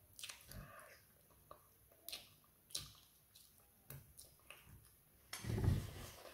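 Mouth sounds of a person eating fried tilapia by hand: short wet clicks and smacks of chewing and finger licking, a few to a second. A louder rush of noise comes about five seconds in.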